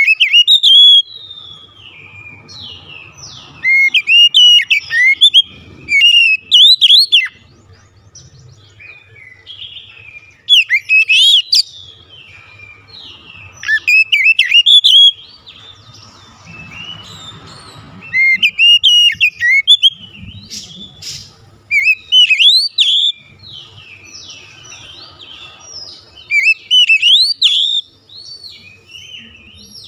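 Oriental magpie-robin (kacer) singing loud, varied whistled phrases with quick up-and-down glides. The song comes in bursts of one to three seconds with short pauses between them.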